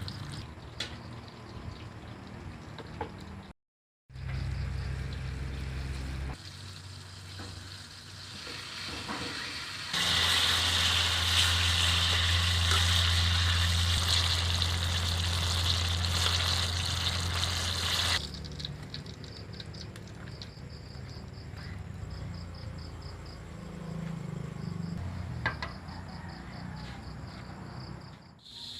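Cooking oil sizzling as turon (saba banana and jackfruit spring rolls) fry in a pan, over a steady low hum. The sound changes abruptly at several cuts and is loudest and brightest from about ten to eighteen seconds in.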